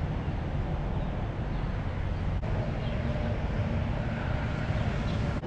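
Steady rumble of passing highway traffic, with a brief dropout about two and a half seconds in.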